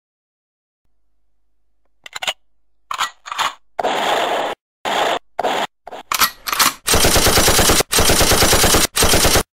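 Machine-gun fire sound effect: quiet for about two seconds, then several short bursts, then long rapid bursts in the last few seconds that stop abruptly.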